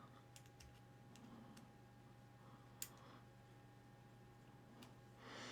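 Near silence over a faint steady hum, with a few brief faint clicks, one louder about three seconds in: a small screwdriver and the kit's seat parts being handled as a screw is backed off slightly so the part can move.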